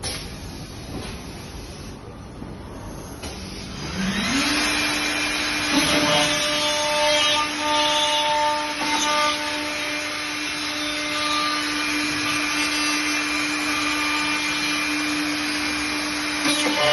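CNC window-and-door profile milling machine: about four seconds in, its milling spindle motor spins up to a steady high whine, and from about six seconds the cutter mills into a profile with a rough cutting noise over the whine.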